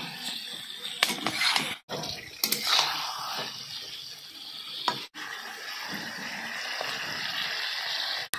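A steel spatula scraping and knocking against a steel kadhai as chicken pieces are stirred and fried in thick masala, with a few sharp clinks and a steady frying hiss.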